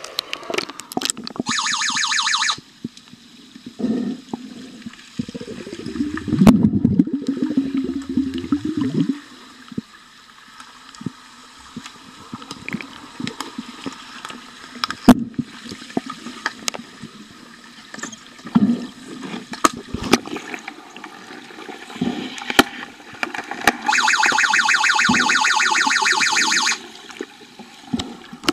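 Underwater sound of an underwater hockey game: sharp clicks and knocks of sticks and puck on the pool floor, with bubbling and rushing water. Twice a harsh pulsing buzz starts and stops abruptly, about a second long near the start and about three seconds long near the end: the underwater buzzer that signals a stoppage in play.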